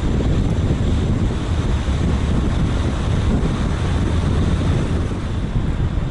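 Wind buffeting the microphone of a car-mounted action camera while driving, a loud, steady low rumble mixed with road noise.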